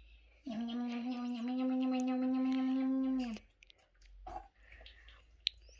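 A child humming one steady, held note for about three seconds, starting about half a second in and stopping abruptly, followed by a few faint clicks.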